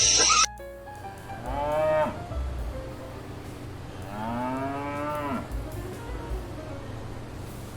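Cow mooing twice: a short moo about a second and a half in, then a longer one that rises and falls. A louder sound cuts off abruptly in the first half second.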